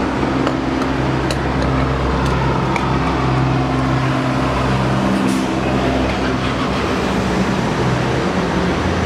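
A vehicle engine idling steadily: a low, even hum, with a few light clicks over it.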